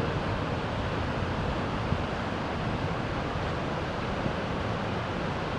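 Steady rush of the flooded, fast-running James River, with wind buffeting the microphone.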